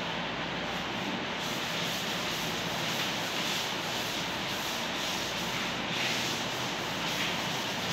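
Blackboard duster rubbing across a chalkboard, wiping off chalk writing.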